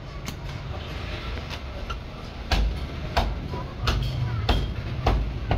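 Heavy butcher's cleaver chopping goat meat on a wooden chopping block: a few light taps, then about six sharp chops in a steady rhythm, a little more than half a second apart, through the second half.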